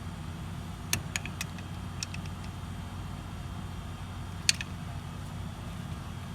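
A few light metallic clicks and taps from handling the brake caliper and piston tool, the sharpest about four and a half seconds in, over a steady low hum.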